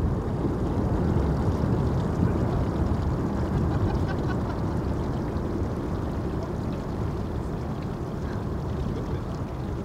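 Low rumble of a glacier's ice front calving and collapsing into the sea, easing off gradually.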